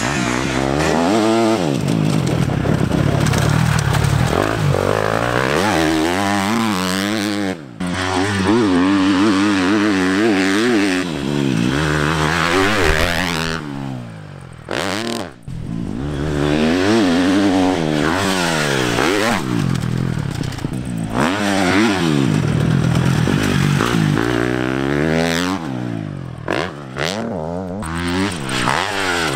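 KTM four-stroke motocross bike's single-cylinder engine under hard riding, revving up and dropping back again and again as the rider works the throttle and shifts. The engine sound breaks off briefly a few times.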